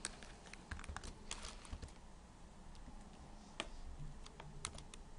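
Keystrokes and clicks on a computer keyboard and mouse while keyboard shortcuts such as Ctrl+Z are entered: a quick flurry of clicks in the first two seconds, then a few single clicks.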